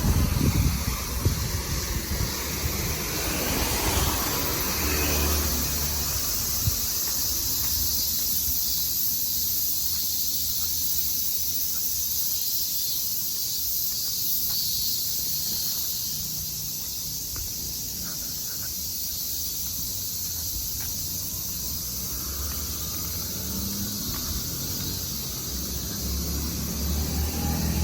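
Strong typhoon wind, gusting against the microphone with low rumbling buffets in the first two seconds and again near the end, over a steady high hiss.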